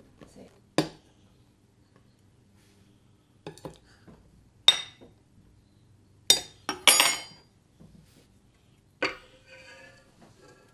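A metal measuring cup clinking and knocking against a glass mixing bowl and a stainless steel stand-mixer bowl as flour is scooped across: separate clinks a second or so apart, some ringing briefly. The loudest come a little past the middle, and there is one more knock near the end.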